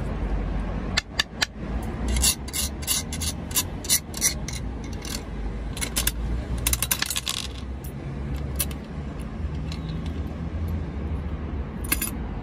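Die-cast metal gumball machine worked by hand: a run of sharp metallic clicks and clacks from its coin-and-knob mechanism as the knob is turned to release a gumball. The clicks come thickest in the first half, with a few more later and a last one near the end.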